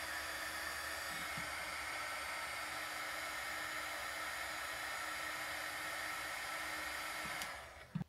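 Handheld heat gun blowing steadily, a rush of air with a faint hum, shrinking heat-shrink tubing over freshly soldered joints on a charger lead. It switches off and winds down near the end.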